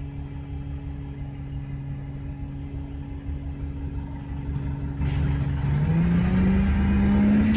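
Alexander Dennis Enviro200 XLB bus engine running steadily at idle, then getting louder about five seconds in and revving with a steadily rising pitch as the bus pulls away.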